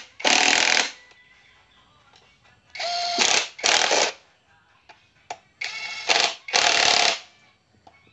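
Three pairs of short, loud hissing bursts, each burst about half a second long, with a pair roughly every three seconds and quiet between them.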